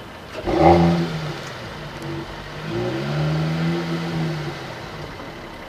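Mercedes-AMG GT 4-door coupe's engine revving through its exhaust. There is a sharp, loud rev about half a second in that falls away quickly, then a longer rev around three seconds in that rises, holds and drops back.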